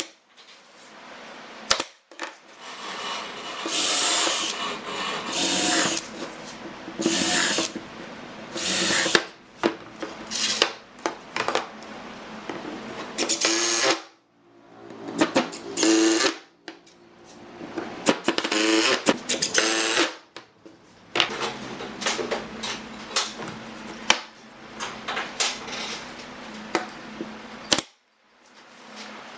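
A cordless drill boring into a pine board, running in several long bursts whose motor pitch rises and falls under load. Near the start and the end there are single sharp pops from a pneumatic brad nailer firing into the wood.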